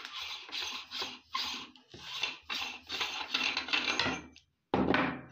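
Rasping metal-on-metal scraping from a hand-cranked aluminium meat grinder as its threaded front ring is worked loose, in repeated strokes about two a second, with one louder scrape near the end.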